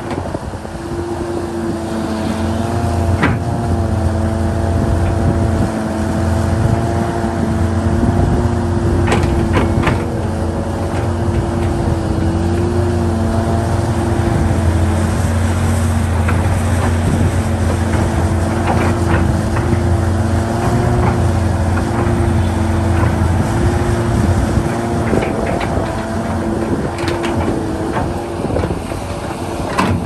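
Large Hitachi 670LC hydraulic excavator working: its diesel engine runs steadily under load with a slightly wavering pitch and a deep rumble. Sharp metallic clanks come through several times.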